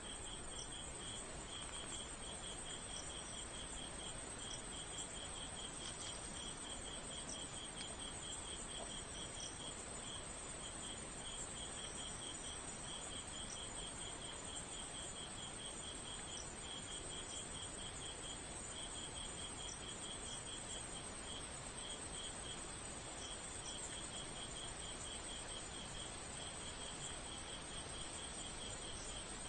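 Crickets chirping at night: a steady run of evenly spaced chirps with a few short breaks, and a higher continuous insect trill above it, over an even hiss.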